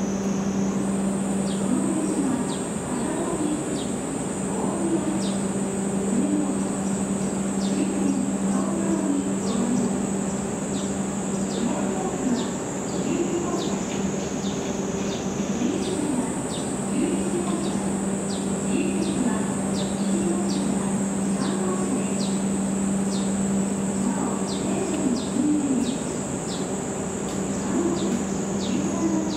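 Cicadas shrilling in a steady high drone, with short high chirps about twice a second. Under them a low steady hum drops out for a few seconds in the middle.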